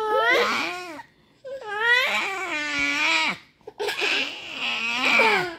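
A baby and a toddler girl laughing in three long, high-pitched outbursts, each falling in pitch as it dies away.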